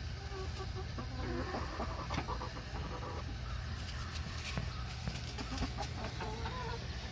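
Hens clucking quietly, with short calls in two spells, about a second in and again near the end, and a few faint clicks between them.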